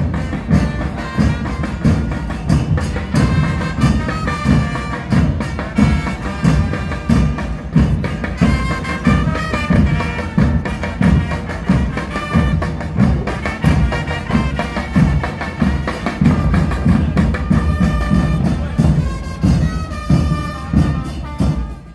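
Marching drum band: large bass drums (bombos) beating a fast, steady rhythm, with a higher melody carried over the drums.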